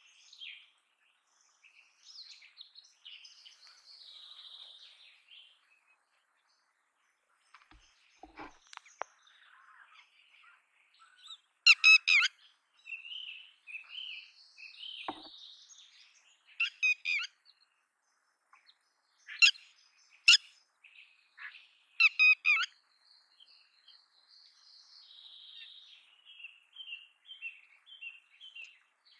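Red-wattled lapwing calling: a handful of loud, sharp calls spread through the middle, with fainter, higher chirping between them and near the end.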